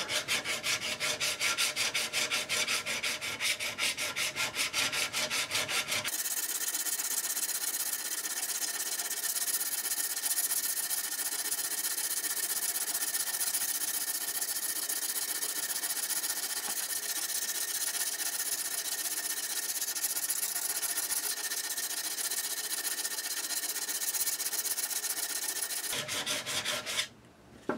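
A hand-held diamond hone rubbed back and forth on a steel drawknife blade, working down a raised ridge that hammering left on the blade's back. It starts as even strokes about five a second, then from about six seconds in runs as a steady scraping hiss, and stops about a second before the end.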